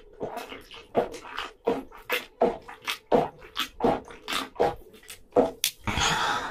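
Close-miked gulping of beer from a can: a steady run of loud swallows, about two to three a second, ending near the end in a loud breath out as the can comes down.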